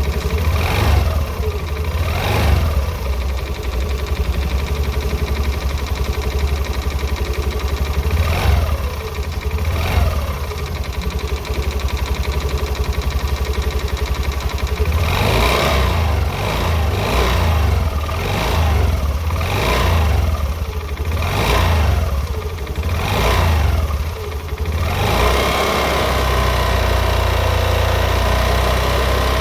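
Motorcycle engine running with an abnormal metallic noise that the uploader puts down to a failed cylinder. The throttle is blipped repeatedly, the revs rising and falling: twice at the start, twice more about a third in, then a quick run of about eight blips through the middle, before it settles into steady running near the end.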